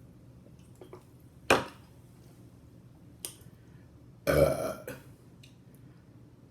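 A woman burping loudly once, a drawn-out belch of about half a second, about four seconds in. A short sharp click comes about a second and a half in, and a fainter one shortly before the burp.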